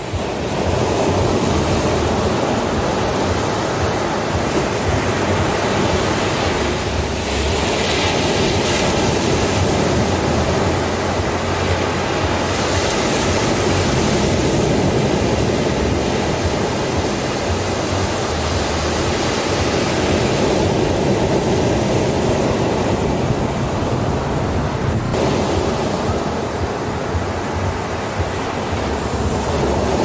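Ocean waves breaking and washing up on a sandy beach: a continuous rush of surf that swells and eases a little as the breakers come in.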